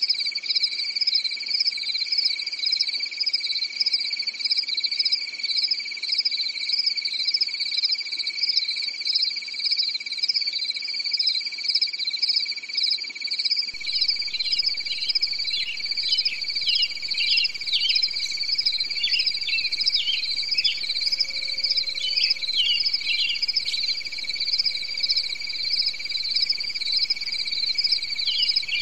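Steady chorus of insects trilling in rapid pulses at two high pitches. Short falling chirps join in about halfway through.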